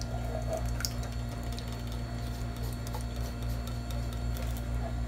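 Thick canned cream poured into a pan of creamy sauce and stirred in, giving faint wet sounds and scattered small clicks over a steady electrical hum.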